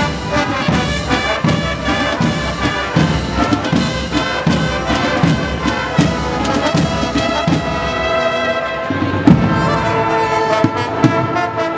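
Agrupación musical, a Spanish Holy Week brass-and-percussion band of trumpets, trombones and tubas, playing a processional march over a steady drum beat. About eight seconds in the drumming thins out and the brass holds long chords.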